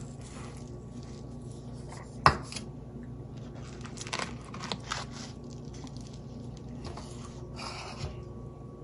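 Hands handling a raw ribeye on a plastic cutting board: a sharp knock about two seconds in, then a few lighter taps and a brief rubbing noise as the meat is pressed and lifted.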